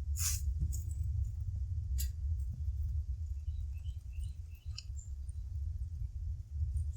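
A steady low rumble, with a sharp click just after the start and another about two seconds in, and a few short, faint high chirps in the middle.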